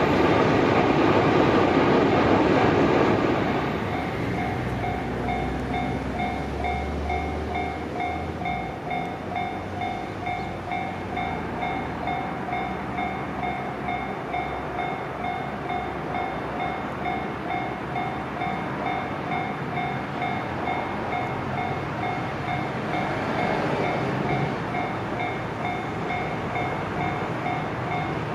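A train running through a level crossing on the JR Tokaido Line, loud for the first few seconds before its noise drops away. The crossing's electronic warning bell rings on in a steady, evenly repeating ding over a low background rumble.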